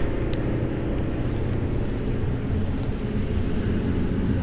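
Wind rumbling steadily across an action-camera microphone.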